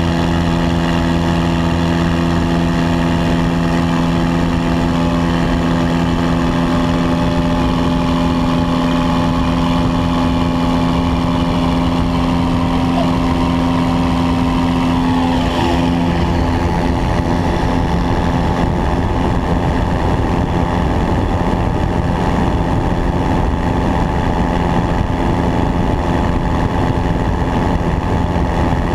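Single-engine light aircraft's piston engine and propeller running at full takeoff power, a loud steady drone with rushing air noise, heard through a camera mounted under the wing. About halfway through the steady hum shifts and blurs as the plane leaves the runway and climbs.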